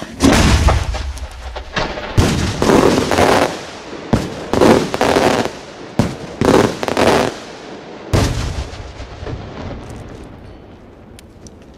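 Large Italian-style cylinder firework shell, a multi-salute, fired from close range: a heavy boom at the start, then a rapid string of about ten loud, sharp reports over the next six seconds as the shell breaks overhead, echoing and fading away near the end.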